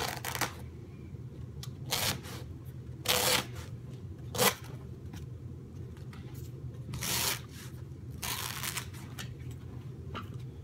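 Carpet being worked by hand into the edge along a baseboard: about six short scuffs and rustles as the pile is tucked and creased onto the tack strip, over a steady low hum.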